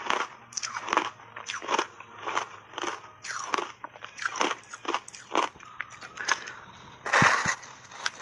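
Crunchy refrozen ice being chewed, with a sharp crunch about twice a second. About seven seconds in comes a louder crunching bite into the matcha-powdered ice block.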